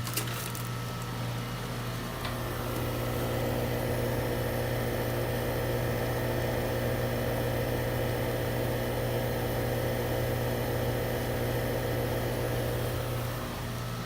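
Goodman air conditioner's outdoor condensing unit running, compressor and condenser fan together: a steady electrical hum that grows a little louder about two seconds in.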